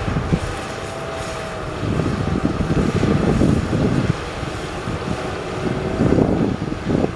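Heavy construction machinery engine running, with a faint steady whine over uneven low rumbling.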